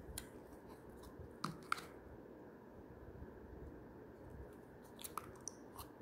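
Small sticky clicks and crackles of slime being pinched and pulled from a small plastic jar: two sharp ones about a second and a half in, and a few more near the end.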